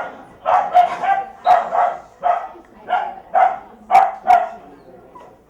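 A dog barking, about nine loud barks, often in quick pairs, that stop near the end.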